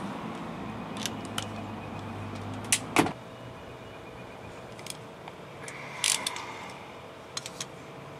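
Sharp clicks and light clinks of hand pliers and wiring being handled while frayed wire ends at a brake-light connector are reworked. The loudest are two clicks close together about three seconds in, where a faint low hum stops.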